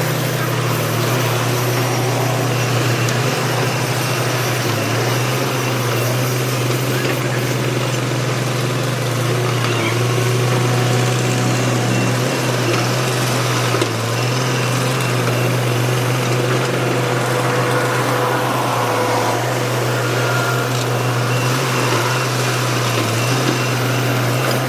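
Excavator's diesel engine running at steady revs, a constant low hum with mechanical noise above it.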